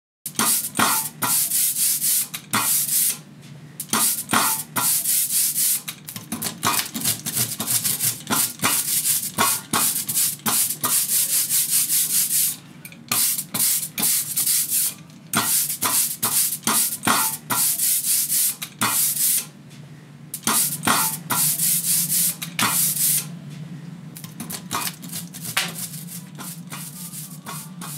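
Runs of fast, dry rubbing strokes, a scratchy hiss several times a second, broken by short pauses, growing quieter and sparser after about 23 seconds. A steady low hum lies underneath.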